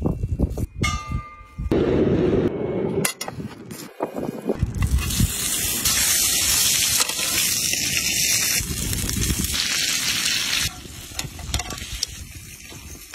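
Thick yak steak sizzling on a hot griddle pan over a charcoal stove: a loud, steady sizzle from about five seconds in, easing off shortly before the end. A few sharp clicks come before it.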